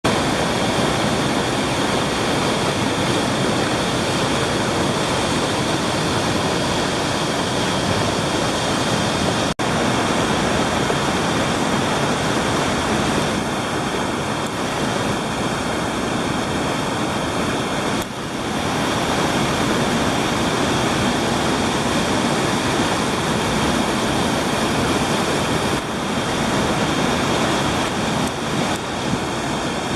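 Whitewater rapid rushing in a steady loud wash of water noise. It cuts out for an instant about ten seconds in.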